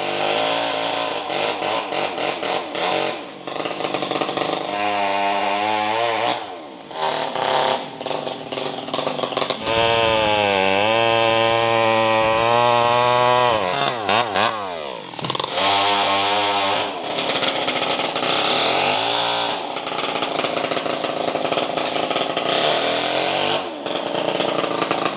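New West 588 two-stroke chainsaw, tuned up and run without a muffler, cutting into a tree trunk. Its engine pitch rises and falls repeatedly as it revs and takes load, with several brief drop-outs.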